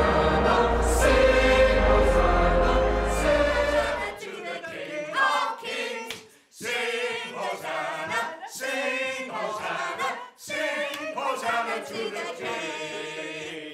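Church choir of men's and women's voices singing together. The singing is loud and full for the first four seconds, then continues in shorter phrases with brief breaks.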